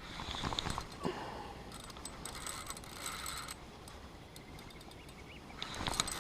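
A size 2500 spinning reel being wound in, its gears giving a dense mechanical ticking whir for about two seconds in the middle. Lighter handling clicks come before and after.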